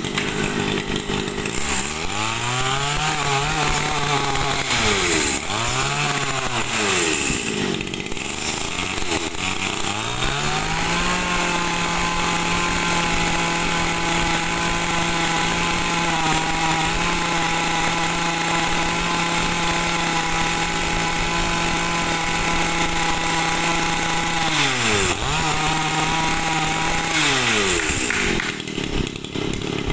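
Small 25 cc two-stroke engine of a Stihl FS 76 brush cutter running. Its throttle is blipped several times, then it is held at high revs for about fourteen seconds, let down, blipped once more and left to idle. Its note sounds like an aftermarket sport exhaust.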